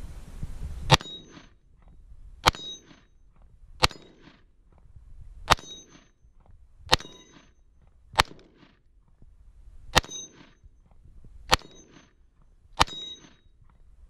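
Nine shots from an IWI Tavor X95 bullpup rifle, about one every second and a half, each answered by the ringing ping of the bullet striking an AR-500 steel gong.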